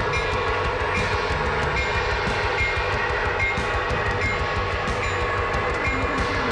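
O gauge model diesel locomotive running on three-rail track, with the steady drone of its onboard engine sound over a low rumble, and irregular sharp clicks as its wheels cross rail joints and turnouts.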